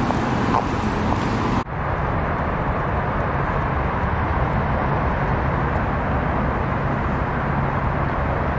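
Steady city street ambience with traffic noise, an even rumble of passing cars. About a second and a half in the sound drops out for an instant and comes back duller, with less hiss.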